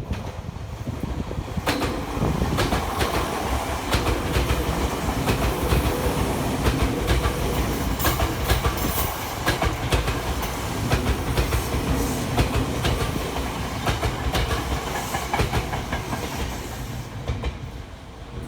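Tokyo Metro 7000 series electric train passing close by, its wheels clacking over rail joints in a quick, even rhythm over a steady rumble. The sound rises about two seconds in and fades near the end as the train moves away.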